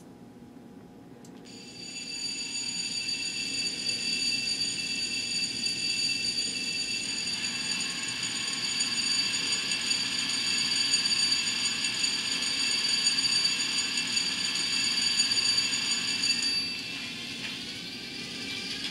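N scale ES44AC GEVO model's LokSound Micro sound decoder playing a recorded diesel horn through its tiny speaker: a chord of steady high tones starts about a second and a half in, is held for around fifteen seconds and cuts off sharply. Under it runs the decoder's GEVO engine sound, which grows louder partway through.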